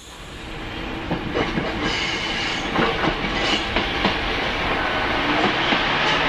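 Single-car diesel railcar approaching and passing, its sound growing steadily louder. Its wheels clatter over the rail joints in a run of sharp clicks.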